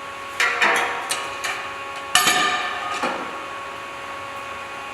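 A series of sharp clanks and knocks with a brief metallic ring, the loudest about two seconds in, over a faint steady hum.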